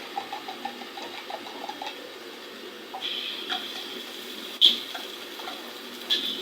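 Metal spatula clanking and scraping against a wok during stir-frying: a quick run of light taps in the first two seconds, then a few sharp clanks, the loudest about two-thirds of the way in.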